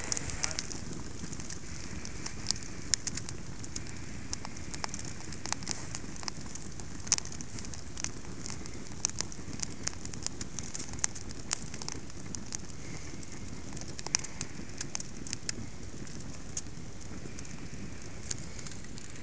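Polyurethane bottle crackling and popping irregularly as it burns in a running microwave oven, over a steady low hum.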